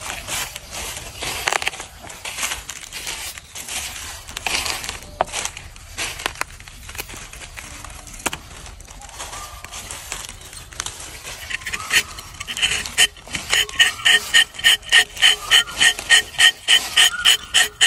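Rubber-tapping knife scraping and shaving bark along the slanted tapping cut of a rubber tree, heard as irregular scrapes and clicks. In the last third a rhythmic high-pitched pulsing, about three pulses a second, joins in and is the loudest sound.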